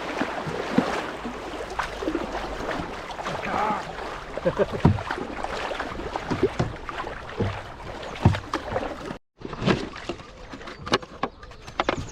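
Water splashing and rushing around a Canadian canoe moving down the river, with short knocks of paddle strokes against the hull every second or so. The sound cuts out briefly about three-quarters of the way through.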